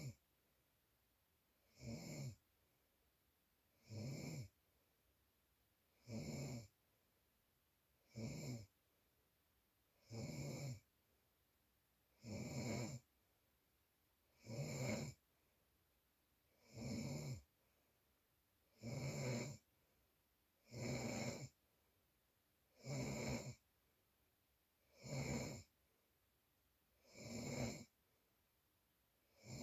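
Snoring in a steady rhythm: one short snore about every two seconds, with quiet between them.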